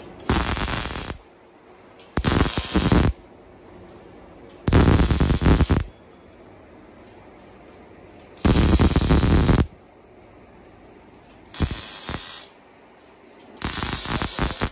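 Automatic arc welding machine making six short welds on a six-blade axial fan, one burst of arc hiss about a second long for each blade, with quiet pauses of one to two seconds between them.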